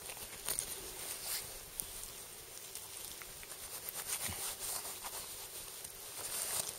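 Soft, irregular scraping and rustling from butchering a deer carcass by hand: a hunting knife working through meat and hide, with the crackle of a nylon jacket and snow, in scattered short clicks.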